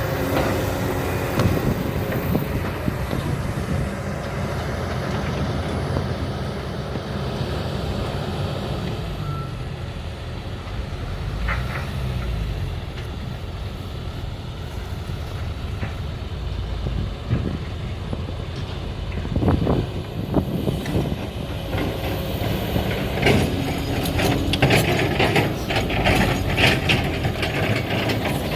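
Diesel engines of a Kobelco SK200 excavator and a dump truck running steadily. In the last several seconds a rapid series of knocks and rattles is heard, typical of sand and rock being dumped from the bucket into the truck bed.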